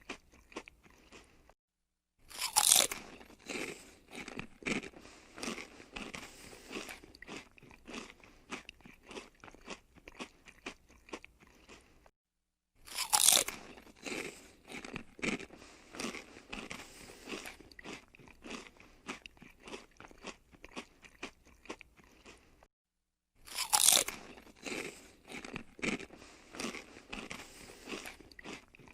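Someone biting into crispy fried potatoes and chewing them with loud crunches. There are three sharp bites about ten seconds apart, each followed by a long run of rapid crunchy chewing.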